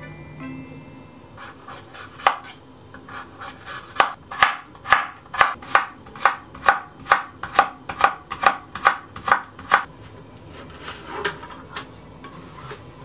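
Chef's knife slicing a carrot into sticks on an end-grain wooden cutting board: one knock, then a steady run of sharp strikes on the board about two to three a second that stops near the end.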